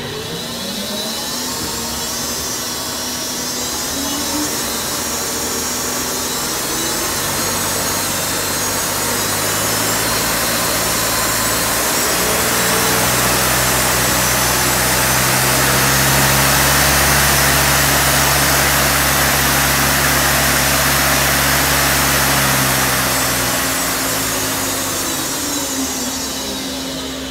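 Femco HL-55S CNC lathe spindle spinning its 24-inch three-jaw hydraulic chuck. It makes a loud whirring hum whose pitch rises over the first several seconds as the spindle speeds up, holds steady at speed, then falls over the last few seconds as the spindle winds down.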